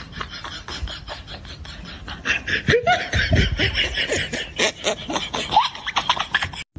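Men laughing in rapid bursts, growing much louder about two seconds in and cutting off abruptly near the end.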